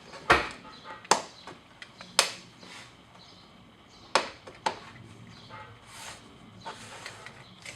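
Sharp knocks and snaps of plastic interior trim, the rocker panel covers, being pressed and tapped into their clips: about five loud hits with fainter clicks between them.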